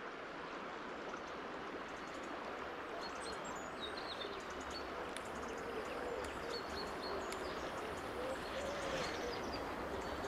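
Steady rushing of a fast-flowing mountain river, with faint short high chirps from a few seconds in.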